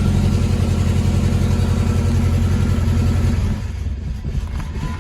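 Izh Kombi's four-cylinder petrol engine running just after a start, with a fast low pulse. About three and a half seconds in the revs drop and it goes quieter. It is still misfiring, running on three cylinders, which new spark plugs and plug leads have not cured.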